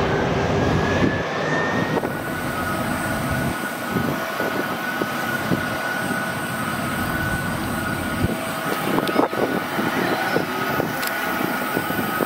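Jet airliner engines at low taxi power, heard as a steady high whine over a rumble as a Delta Airbus A330-300 taxis. In the first two seconds there is a different rising whine with heavier rumble, from a Boeing 767-400 on its runway roll, which breaks off abruptly.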